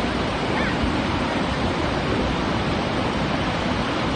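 Steady roar of Niagara's American Falls, water pouring onto the rocks at its base and churning in the river below.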